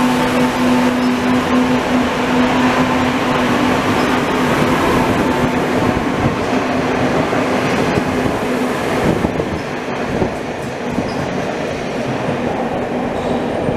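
Madrid Metro train pulling out of the station into the tunnel: a continuous rumble of wheels on rails with a steady hum that fades out after about eight seconds as the train draws away, the rumble dropping a little after that.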